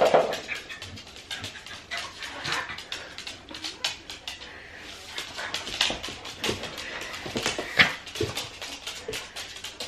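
Two dogs, an Australian Shepherd puppy and a second dog, playing and scuffling on a hardwood floor, with many short clicks and knocks.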